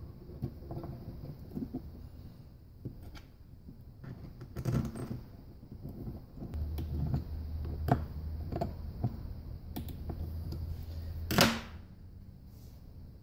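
Small metal clicks and clinks as the Hydra-Matic inner valve body is handled and fitted together by hand, with a louder sharp knock near the end as the valve body is set down on the metal bench. A low steady hum comes in about halfway through.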